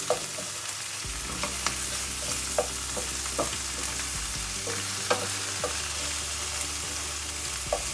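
Sliced onion, garlic and spring onion sizzling in hot oil in a stainless steel pan, with a wooden spatula scraping and knocking against the pan at irregular intervals as they are stirred.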